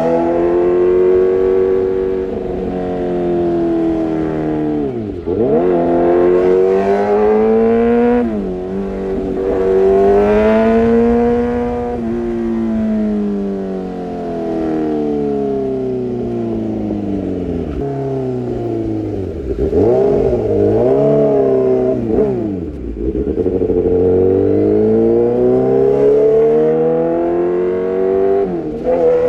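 Kawasaki ZX6R inline-four engine through an Arrow Pro-Race exhaust, its revs rising and falling again and again, with several quick drops and pick-ups.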